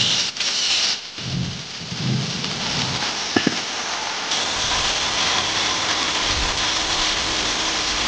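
Corded electric angle grinder working on the steel of an empty helium tank: a loud, steady, harsh hiss of the spinning disc on metal. It dips briefly about a second in and has two sharp clicks near the middle.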